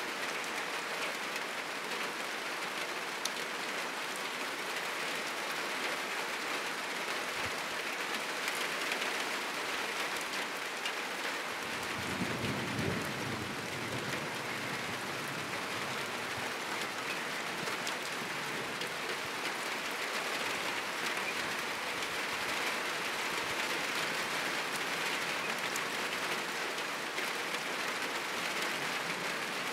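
Heavy rain falling steadily on a roof, with scattered drop ticks. About twelve seconds in, a low rumble of thunder swells for a couple of seconds.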